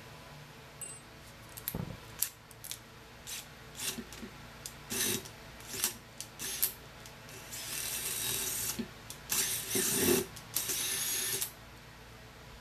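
Cordless drill running in three bursts of about a second each, drilling into a steel Dana 30 axle housing, after several clicks and taps of handling the drill and bits.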